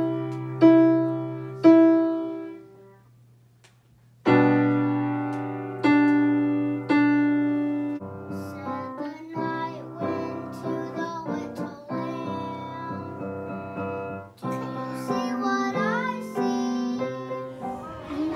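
Piano chords struck slowly and left to ring, with a short pause about three seconds in. In the second half the playing gets busier and a child's voice sings along with the piano.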